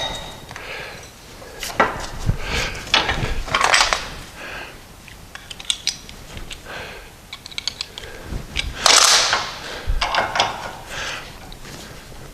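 Hand work on the bronze idler-arm bushes clamped in a bench vice, as they are reamed out with an adjustable hand reamer: irregular metal scrapes with sharp clicks and knocks, and louder scraping runs about four seconds in and again near nine seconds.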